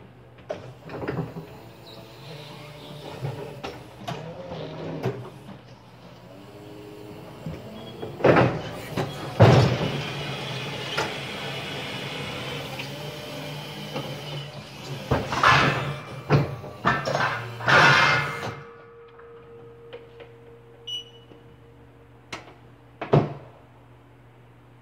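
Crown electric reach truck handling a pallet: a steady electric hum, with its hydraulic pump and motors whirring for about ten seconds in the middle before cutting off suddenly. Several sharp metallic clunks and knocks from the forks, mast and pallet come along the way.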